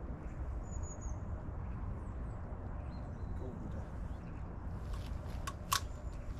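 Steady low outdoor rumble, with a faint high bird chirp about a second in and two sharp clicks near the end.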